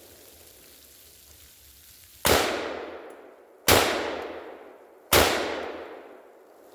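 KelTec 5.56 bullpup rifle firing three single shots about a second and a half apart, each followed by an echo fading over about a second.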